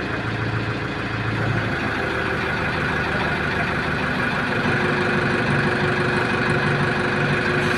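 A diesel engine running steadily at a low, even speed, like a heavy vehicle or lifting machine idling.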